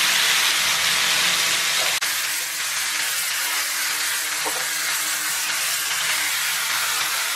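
Marinated bone-in pork sizzling steadily in a hot wok as it starts to fry.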